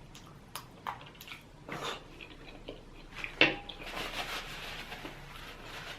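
Close-miked eating sounds: chewing with scattered short wet clicks and smacks of the mouth, and a soft stretch of noisier chewing about halfway through.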